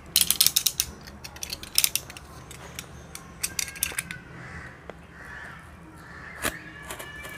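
A cardboard parcel being cut open along its packing tape with a small hand tool: quick runs of sharp scratching and clicking on the cardboard, with a single sharper knock about six and a half seconds in.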